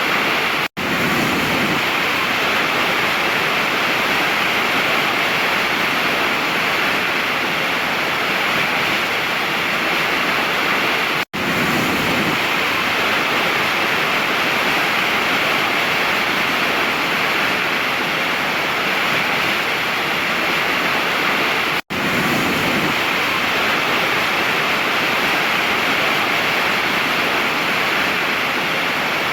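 Waterfall rushing in a steady, dense roar of falling water. It drops out for an instant three times, about every ten and a half seconds.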